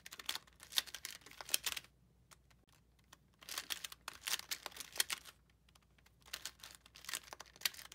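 A Pyramorphix twisty puzzle being turned fast by hand through an algorithm: rapid plastic clicking and clacking in three runs of about two seconds each, with short pauses between.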